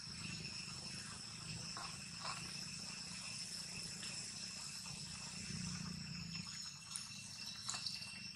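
Steady high-pitched drone of an insect chorus, with a low hum underneath and a few faint ticks.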